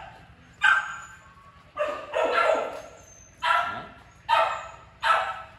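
A kennel dog, a Bac Ha dog, barking five times about a second apart, the second bark drawn out longer.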